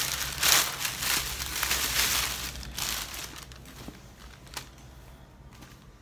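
Thin plastic bag crinkling and rustling as it is pulled off and handled, loud for the first few seconds, then quieter handling with a small click just past the middle.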